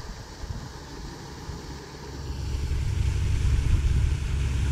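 Wind buffeting the microphone: an uneven low rumble that grows stronger about two seconds in.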